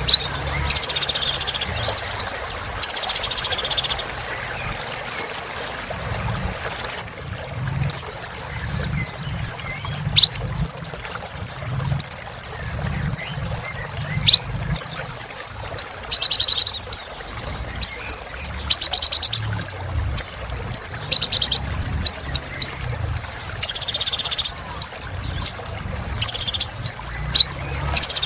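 A kolibri ninja sunbird singing vigorously: a long run of high, thin chips and fast trills, many notes quickly sliding in pitch, with brief buzzy hissing phrases mixed in.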